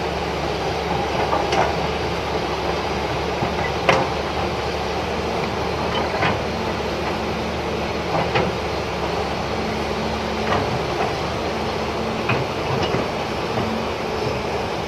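Caterpillar hydraulic excavator's diesel engine running steadily while it works, over rushing river water, with scattered sharp knocks every second or two.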